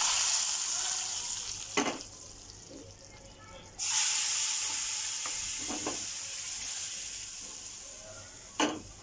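Garlic tempering (tadka) of hot oil poured into a pan of dal, sizzling loudly and fading over a couple of seconds. It sizzles up again suddenly about four seconds in and dies away slowly. Sharp knocks come about two seconds in and near the end.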